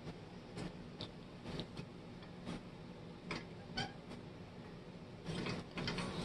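Light metallic clicks and knocks from handling the cast-iron roller assembly of a 1920s A.V. Ross Co. Stikfast label paster, its stacked metal discs and gear shifting in the frame. The knocks come scattered at first, then crowd into a busier clatter near the end.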